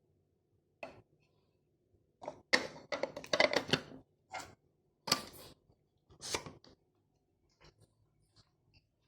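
Vacuum storage container and grinder being handled: a series of sharp clicks and knocks with a stretch of scraping, crunching strokes about two and a half seconds in.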